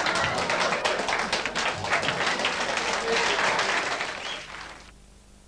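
Applause with voices mixed in, fading away about four and a half seconds in.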